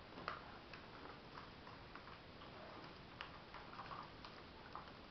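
Faint, irregular small clicks and crinkles of a sheet of origami paper being folded and creased by hand.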